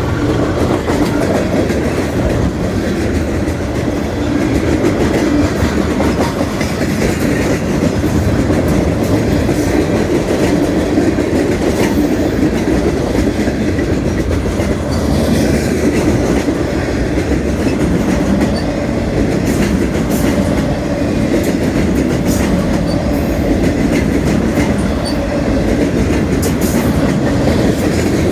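Freight train rolling past: a steady rumble of steel wheels on the rails, with scattered sharp clicks.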